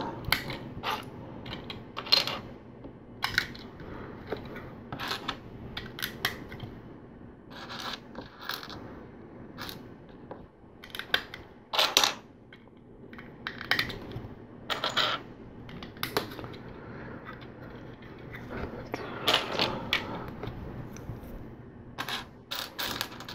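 Plastic LEGO bricks clicking and clattering: loose pieces are rummaged through in a pile and snapped onto a baseplate, in irregular sharp clicks.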